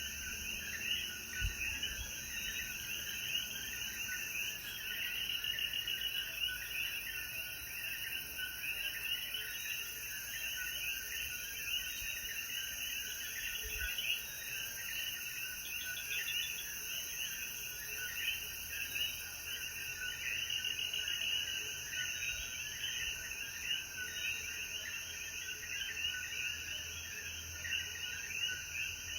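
Dense night chorus of Puerto Rican coquí frogs: many short rising chirps overlapping continuously, over a steady high-pitched hiss.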